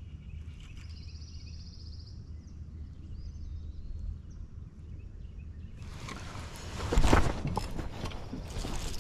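Steady low rumble of wind and water around a fishing kayak, with a brief high whirr about a second in. From about six seconds there is a burst of splashing with a loud knock about seven seconds in.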